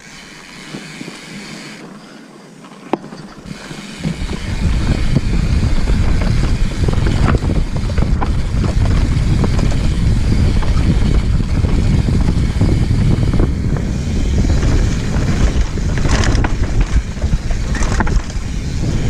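Santa Cruz Megatower mountain bike running down a dirt trail: wind buffeting the GoPro's microphone mixed with tyre noise and chain and frame rattle. It is quieter at first with a few sharp clicks, then gets much louder about four seconds in and stays loud.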